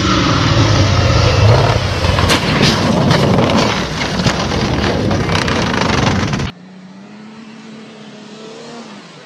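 Off-road vehicle's engine running loud as it jumps a sand dune, with several sharp knocks as it crashes and tumbles in the sand. About two-thirds of the way in it cuts abruptly to a quieter, steady engine hum from an SUV driving on desert sand.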